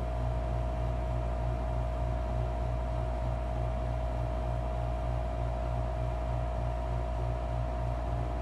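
A steady low machine hum with a slight regular pulsing in its low end, a faint steady higher tone and an even hiss over it.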